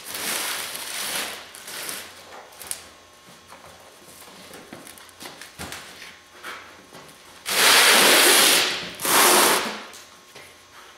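A cardboard shipping box holding a rolled aluminum diamond-plate sheet being opened and handled: cardboard rustling and scattered knocks. About eight and nine seconds in come two loud scraping rushes as the box is moved on the concrete floor.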